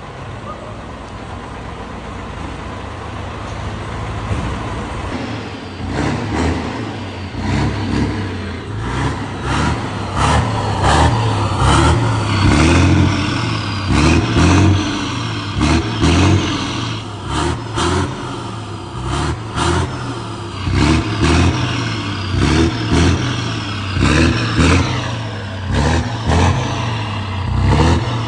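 FNM truck's Scania 112 diesel engine running loud through a diffuser exhaust with the flap open. It runs steadily at first, then from about five seconds in it is revved again and again, each surge rising and dropping back about once a second.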